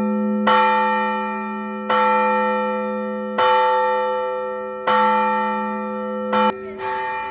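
Russian Orthodox church bell ringing for a service: a bell struck in slow, even strokes about every second and a half, its low hum carrying on between strokes. Near the end a quicker, lighter stroke comes and the hum dies away.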